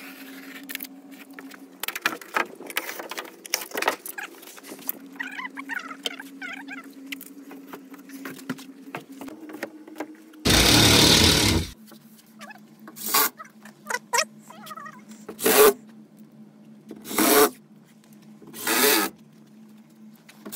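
Cordless drill driving screws through a drywall sheet into the wooden studs: one longer burst about halfway through, then four short bursts spaced a second or two apart. Before that come light scraping and tapping from handling and measuring the sheet, over a faint steady hum.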